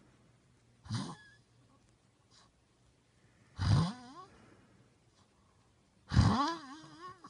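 A man snoring, three loud snores about two and a half seconds apart. The later two end in a wavering pitched tone.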